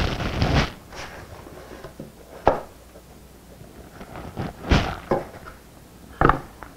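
Wooden thunks and knocks as the pieces of a slotted wooden clamp rack are handled and set down on a workbench: a handful of separate sharp knocks spread across several seconds, with quiet between them.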